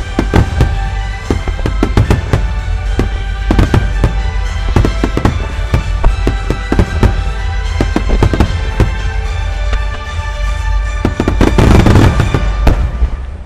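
Starmine fireworks display: aerial shells bursting in quick succession, over music. A dense, loud volley of bursts comes near the end.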